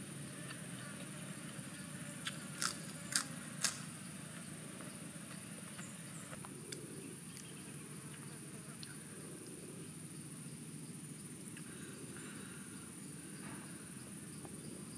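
Insects drone in a steady high-pitched hum. A few crisp snaps between about two and four seconds in, from lettuce leaves being torn and handled.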